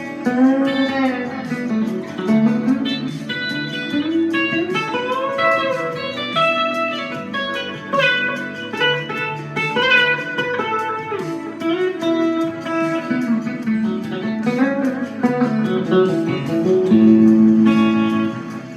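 Fender Esquire electric guitar playing a lead line with bent notes through a Black Cat Mini Trem tremolo pedal, over a backing track.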